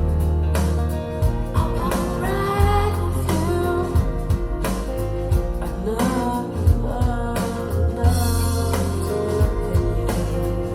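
Recorded song playing through B&W 706 S2 bookshelf speakers driven by a Luxman L-505uX II integrated amplifier: a slow ballad with a sung vocal line over long, deep bass notes and accompaniment.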